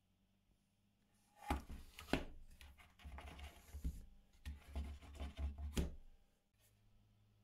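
Wooden pieces being handled and knocked together: a few sharp knocks with irregular scraping and rubbing between them. It starts about a second and a half in and stops shortly before the end.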